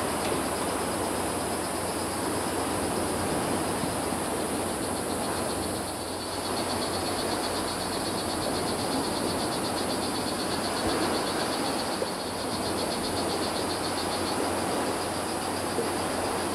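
Strawberry poison dart frog calling: a fast, high buzzing trill of rapid pulses that starts about six seconds in and lasts about eight seconds, over a steady high insect hiss.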